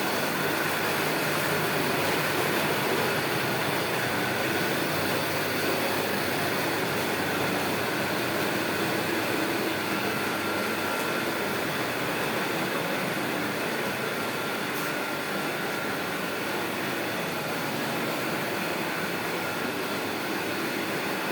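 A 1.5-ton ice plant running steadily, its single-phase Emerson refrigeration compressor making a constant mechanical hum and hiss with a few faint steady tones.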